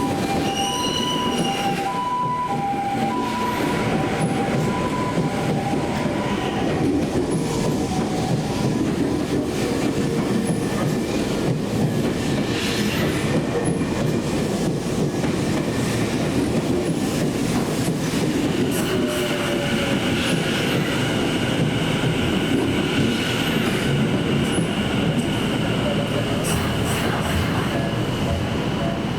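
Level crossing alarm ringing its alternating two-note dings, fading out over the first few seconds, while a Meguro Line electric commuter train runs through the crossing with continuous wheel-on-rail noise. From about two-thirds of the way in, a high steady wheel squeal rides over the running noise.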